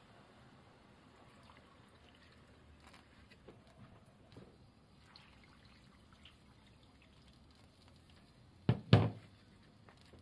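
Water poured from a bowl onto chopped potatoes and sweet potatoes in a cooking pot, faint, with small clicks of the vegetable pieces. Near the end come two sharp knocks close together, the loudest sounds.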